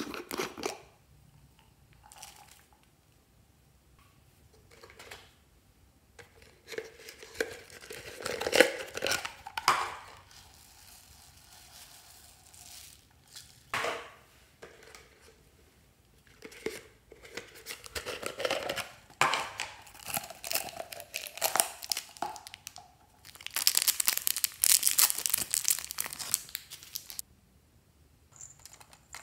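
Foam beads and small plastic pieces being handled and poured into a glass baking dish, heard as a series of rustling, crinkling bursts with short pauses between them. The longest burst comes near the end.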